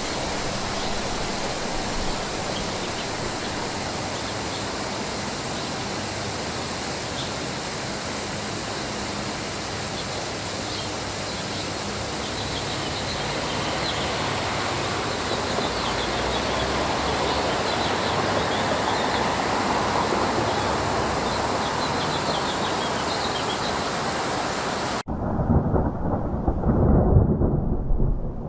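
Steady rain hissing. About 25 seconds in it cuts abruptly to thunder: a low, uneven rumble with rain behind it.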